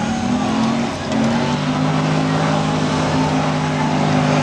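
Drag car engine held at high, steady revs during a burnout. It dips briefly about a second in, then holds at a constant pitch while the rear tyres spin and smoke.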